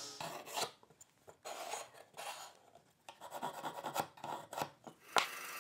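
Pencil scratching layout marks on a sapele board, with light rubbing and handling of the wood in short irregular strokes, then a sharp click near the end.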